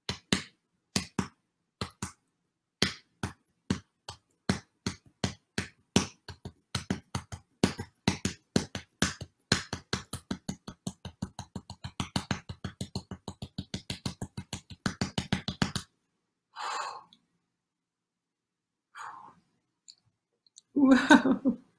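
A woman making a run of sharp clicks that start at about one a second and speed up to several a second, then stop about sixteen seconds in. A few short breathy vocal sounds follow near the end.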